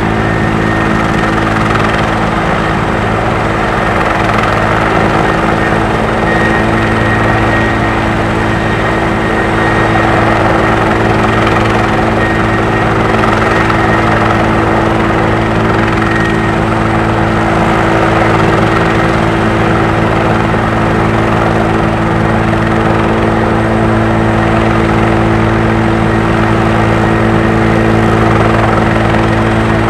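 Bell 412 helicopter running on the ground before take-off, its engines and rotor making a loud, steady sound that holds even throughout.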